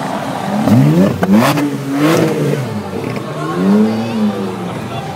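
Ferrari sports-car engines revving in short throttle blips as the cars crawl past close by: a sharp climb in revs about a second in, another around two seconds, and a rise and fall near four seconds.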